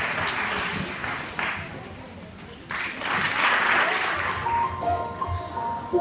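Audience applauding; the clapping thins out and then swells again about halfway through. Near the end it gives way to a slow piano tune.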